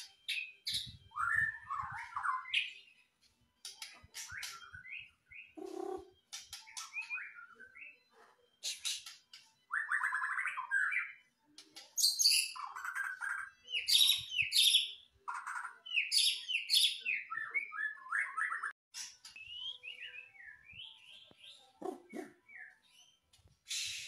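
White-rumped shama (murai batu) singing a varied song in full voice: phrases of sweeping whistles and rapid trills, one after another with short gaps between them.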